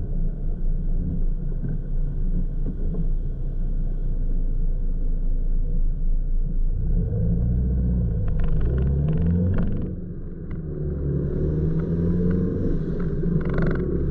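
Car engine idling low and steady, heard from inside the cabin, then pulling away from a standstill and accelerating, its pitch rising, dropping briefly at a gear change about ten seconds in, then rising again. A few light clicks or rattles are heard along the way.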